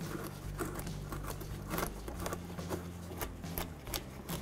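Scattered light clicks and rustles from a gloved hand handling a plastic wheel-well liner, over a low steady hum.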